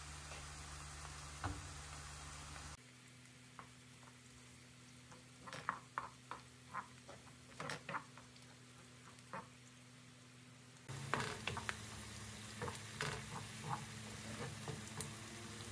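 Wooden spoon stirring tomato paste into chopped onion and green pepper frying in oil in a non-stick pot: irregular light clicks and scrapes of the spoon against the pan over a faint sizzle.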